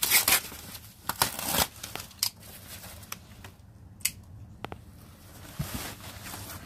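Packaging being unwrapped: a foam wrap sheet and plastic rustling and scraping against a cardboard box in several short bursts, the loudest at the start and about a second and a half in.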